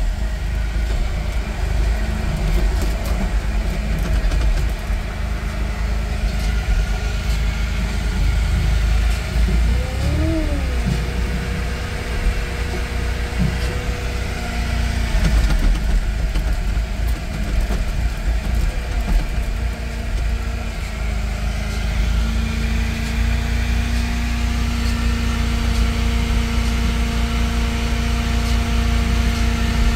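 Diesel engines of a wheel loader and a firewood processor running steadily. About ten seconds in, a whine rises and falls, and a steady whine sets in at about twenty-two seconds.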